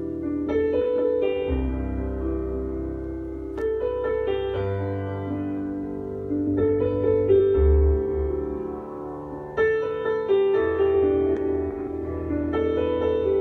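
Piano music with deep, sustained bass notes, played through Ground Zero GZHW 12XSPL 12-inch subwoofers running in free air, with no enclosure.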